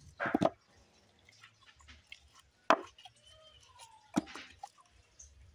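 Pulp-covered cacao beans being pulled from a split pod by hand and dropped into a plastic bowl: a few scattered wet plops and sharp knocks, the sharpest about halfway through.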